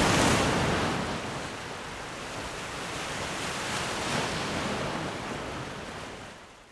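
Ocean surf: waves washing in with a loud surge at the start, easing off, then a second swell in the middle before fading out near the end.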